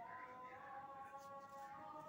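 Faint background music: a few held notes sounding together that step up in pitch twice.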